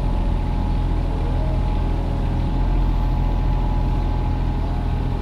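Kubota mini excavator's diesel engine running steadily while digging, with a faint steady whine above the engine note.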